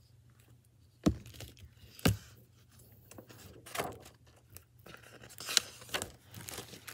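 Handling noise from a hardcover picture book in a crinkly plastic library jacket being moved about close to the microphone. Two sharp knocks about one and two seconds in, then scattered rustling, scraping and small clicks.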